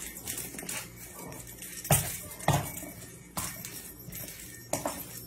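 A series of irregular sharp knocks and clinks, hard objects striking, the loudest about two seconds in.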